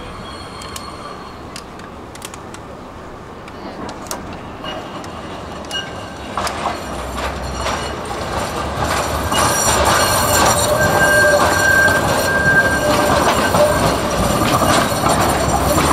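Tram approaching and passing close by, rumbling on the rails. It grows louder through the middle, and from about nine seconds in a high steady squeal rises above the rumble.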